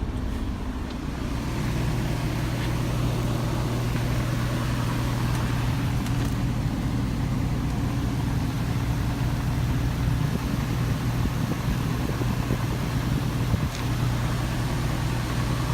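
A semi truck's diesel engine idling, a steady low hum heard inside the cab.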